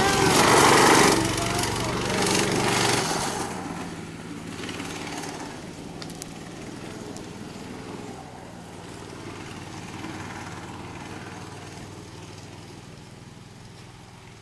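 Kart engine passing close by at speed, loud for the first three seconds or so. It then fades to a faint, steady drone as the kart moves off around the track.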